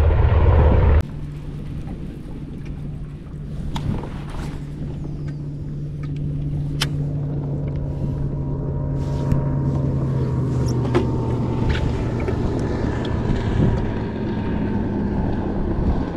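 A motor running steadily, a hum with a few held tones and some sharp clicks. A louder low rumble fills the first second and cuts off abruptly.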